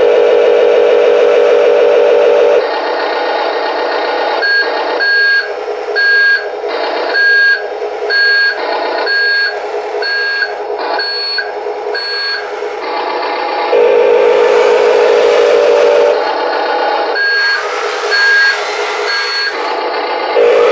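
Amewi 22500 RC wheel loader's sound module sounding a reversing beeper as the model backs up: evenly spaced short beeps about one and a half a second, in two runs, over the model's continuous running sound. A louder, steadier droning stretch comes at the start and again about 14 seconds in.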